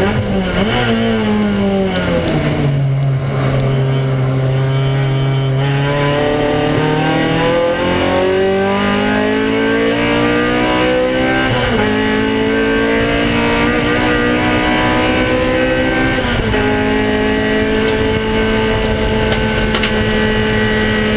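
Race car engine under load on track: it slows down early on, runs low for a few seconds, then revs up through the gears with upshifts about twelve and about sixteen and a half seconds in, and holds steady near the end. The car has a driveline fault that the driver suspects is in the axles or the differential, heard as crunchy sounds in the corners.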